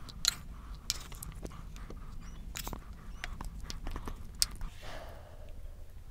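Close-up eating sounds: chewing and biting fried rice, with sharp clicks and a brief scrape of a spoon against a ceramic bowl.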